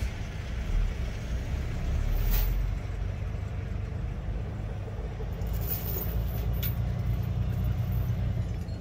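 Tractor-trailer's diesel engine running steadily at low speed while the truck turns around, with a few brief sharp sounds over the rumble.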